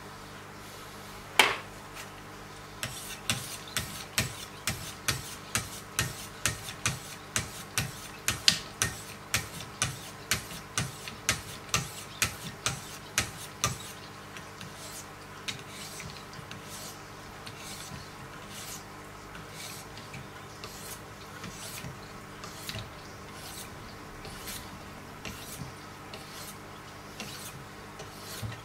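Sharpening stones of a Wicked Edge guided sharpener being stroked along the edge of a clamped steel knife blade: a sharp click about a second in, then a steady run of rasping strokes about two a second, which turn softer and less regular after about fourteen seconds.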